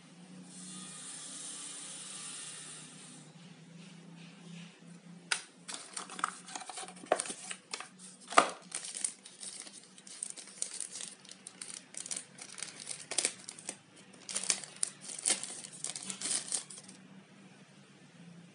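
Unboxing handling noise: a smooth hiss of something sliding or being peeled for a few seconds, then a long run of irregular crinkling and sharp clicks, like plastic packaging and small parts being handled.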